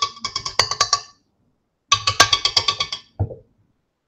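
KitchenAid stand mixer's wire whisk knocked rapidly against its metal mixing bowl to shake off the clinging cream cheese mixture, ringing metallic taps in two quick runs of about a second each.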